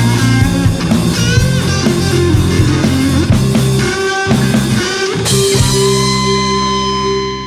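Funk band playing live: electric guitar with bent notes over electric bass and drum kit. About five seconds in they hit a final chord with a cymbal crash and let it ring out.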